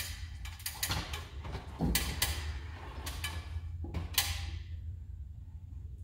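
Hand crimping tool squeezing a butt connector onto a wire: a string of sharp clicks and creaks, the last about four seconds in, over a low steady hum.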